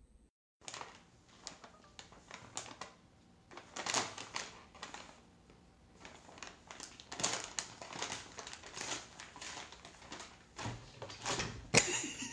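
Paper bag rustling and crinkling as a cat with its head stuck inside it moves about on a wooden table, in irregular scuffs and crackles, with the loudest burst of crinkling near the end.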